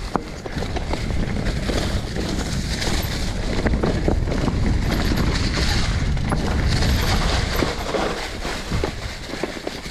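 Mountain bike rolling downhill over loose dirt thickly covered in dry fallen leaves: tyres crunching and rustling through the leaves while the bike rattles and knocks over bumps, over a constant low rumble of wind on the microphone.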